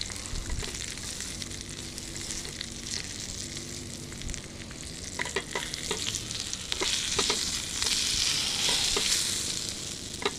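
Breaded crappie fillets sizzling in oil on the painted metal top of a propane stove, used with no pan. Clicks and scrapes of a fork and spatula on the metal come through the middle, and the sizzle gets louder about seven seconds in.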